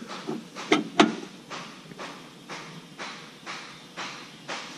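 Metal cab-door hardware being tightened and worked by hand: three sharp clicks in the first second, then soft rasping strokes about twice a second.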